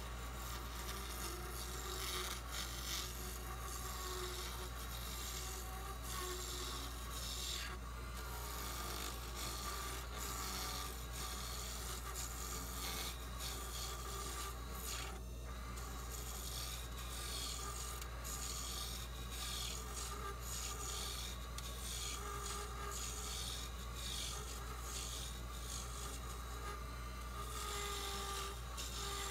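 Lathe gouge cutting a spinning bloodwood pen blank: a continuous rasping scrape of the tool on the wood as it is turned down, over a steady low machine hum.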